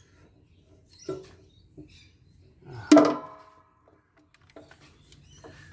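Scattered clicks and knocks of tools and metal parts being handled while a solar inverter is taken apart, with one louder ringing clank about three seconds in.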